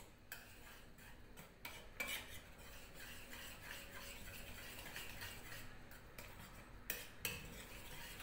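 A spoon stirring thick gram-flour (besan) batter in a bowl: a soft, steady scraping, with a few sharp clinks of the spoon against the bowl, the loudest about two seconds in and again near seven seconds.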